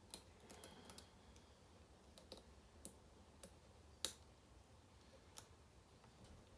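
Faint, irregular clicks of a hook pick working the pins of a pin-tumbler lock cylinder held under tension, with one sharper click about four seconds in. The core is sitting in a false set while the picker probes for the binding pin.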